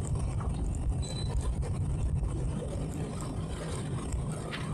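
Towboat's engine running steadily, a low even hum and rumble.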